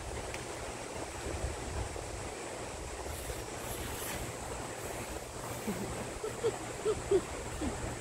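Steady rushing of a mountain valley stream, with a few short chuckling hums from a woman near the end.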